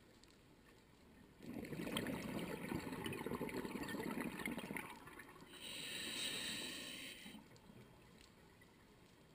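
Scuba diver breathing through a regulator underwater: a long gurgling rush of exhaled bubbles starts about a second and a half in, then a shorter high hiss of the next inhalation through the demand valve about six seconds in.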